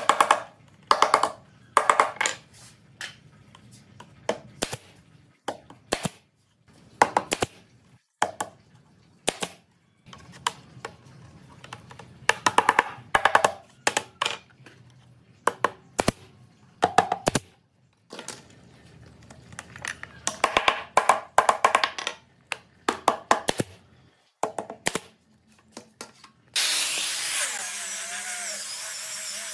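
A hammer tapping thin wooden lattice strips into place, in quick clusters of light blows with short pauses between. Near the end, an angle grinder with a sanding disc starts up and runs steadily with a high whine.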